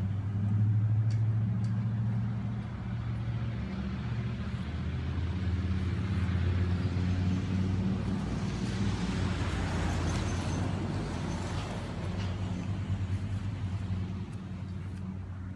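A motor vehicle's engine runs with a low, steady hum. Around the middle a wider road hiss swells and fades, as from a vehicle passing.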